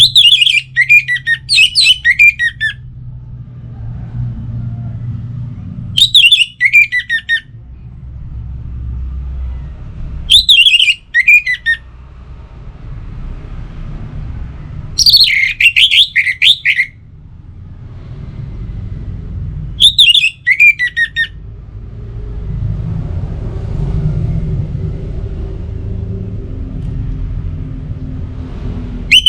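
Orange-headed thrush singing: loud phrases of rapid, sweet notes that slide downward in pitch, repeated five times with pauses of a few seconds between them, and a low rumble in the background between phrases.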